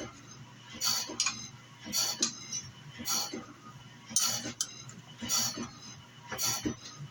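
Wood-Mizer BMS250MU CBN band saw blade sharpener working along a blade, one short metallic grinding burst about once a second as each tooth is indexed and ground, over a steady machine hum.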